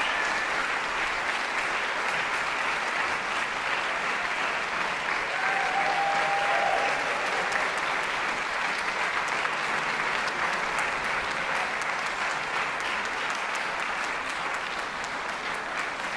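Concert-hall audience applauding steadily, easing off a little near the end.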